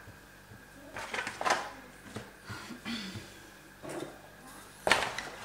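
Hands rubbing flour over dough and plastic cling film on a counter: short dry brushing and rustling strokes. Near the end there is a louder, sudden rustle and knock as a wooden rolling pin is taken up and set on the film.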